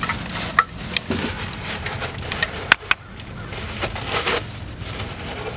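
Metal tools and parts clicking and clinking against an engine's harmonic balancer, over rustling handling noise; the sharpest click comes nearly three seconds in.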